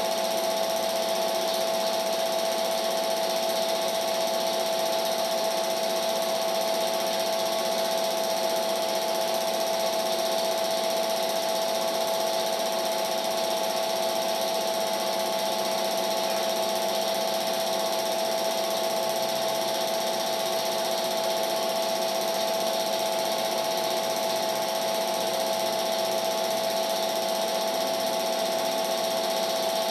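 Film projector running: a steady mechanical whir with a constant hum over hiss.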